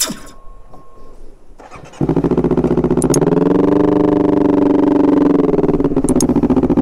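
Honda CBR250RR parallel-twin motorcycle engine running, coming in abruptly about two seconds in, its pitch rising a little and settling back.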